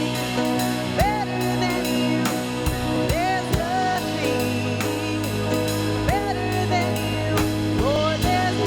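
Contemporary worship band playing an instrumental passage: a drum kit keeping a steady beat under sustained chords and bass, with sliding melodic lines on top.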